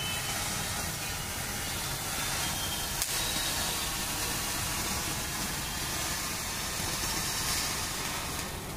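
Firework fountain spraying sparks with a steady hiss and crackling, and one sharper pop about three seconds in.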